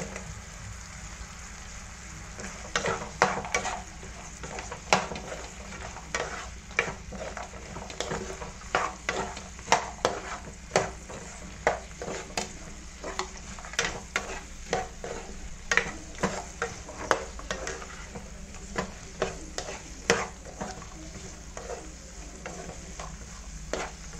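Spatula stirring and tossing fried mutton pieces with onion and capsicum in sauce in a non-stick frying pan, with scrapes and taps on the pan roughly twice a second from a few seconds in, over a steady low sizzle.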